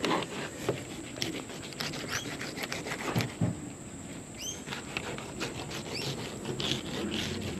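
A knife cutting fillets off a dart fish, making irregular short scrapes and clicks as the blade works along the body. Short rising chirps come now and then in the background.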